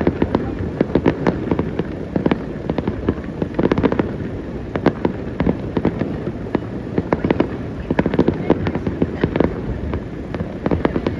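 A fireworks finale barrage: many aerial shells burst in quick succession, so sharp booms and cracks overlap without a break over a continuous rumble.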